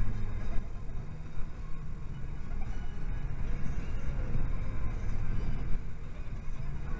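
A car driving along a road, heard from inside the cabin: a steady low rumble of engine and road noise.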